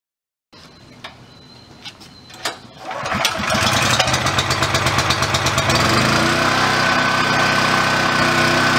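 Honda GX340 single-cylinder four-stroke engine on a NorthStar 3000 PSI pressure washer starting up about three seconds in, after a few faint clicks and knocks, then running steadily. Its note evens out about six seconds in.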